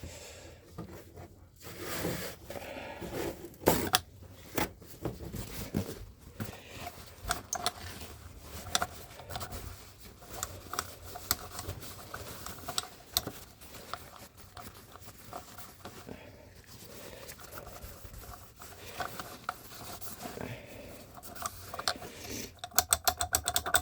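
Metal engine parts being handled and worked on: irregular clicks, light knocks and scraping, ending in a fast, even run of clicks.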